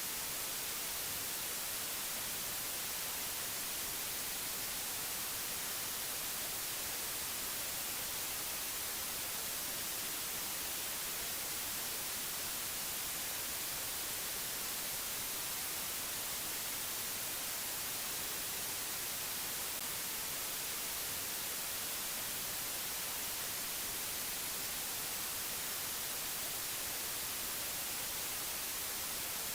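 Steady white-noise hiss, even and unchanging, brightest in the treble.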